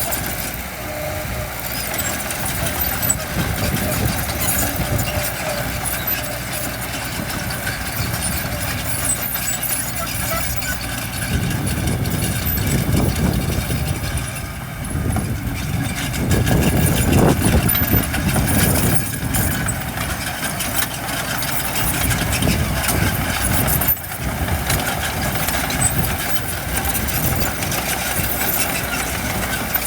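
Diesel engines of heavy earthmoving machinery running, with louder low surges of revving about twelve and seventeen seconds in.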